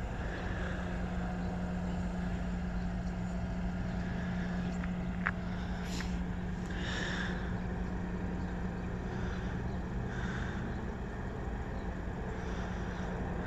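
Steady low hum of an idling vehicle engine, with faint outdoor background noise and a single short click about five seconds in.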